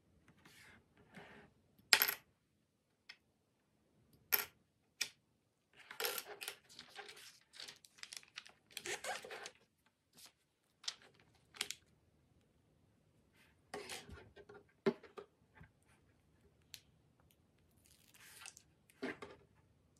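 Small plastic LEGO pieces clicking and clattering on a tabletop as they are picked from loose piles and pressed together, in scattered sharp clicks, with short stretches of paper rustling in between.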